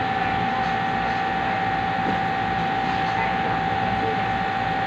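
Steady machine noise: a constant whir with a single unwavering high-pitched whine running through it.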